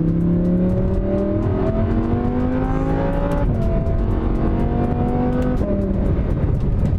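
Audi R8's V10 engine accelerating, revs climbing steadily, then dropping sharply at an upshift about three and a half seconds in, climbing again and dropping at another upshift a little over five seconds in.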